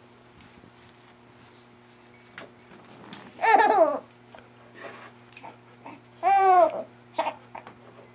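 Young baby squealing and laughing in two loud high-pitched bursts, one about three and a half seconds in and one just past six seconds, with a few shorter squeaks between.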